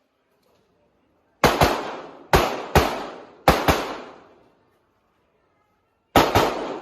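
Handgun shots fired in quick pairs, each shot with a short decaying echo: three pairs in the first four seconds, a pause, then a fast string of three shots near the end.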